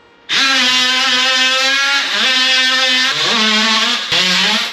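Music added over the footage: a melody of held notes on a single pitched instrument, which starts suddenly just after the beginning and steps to a new note every second or so.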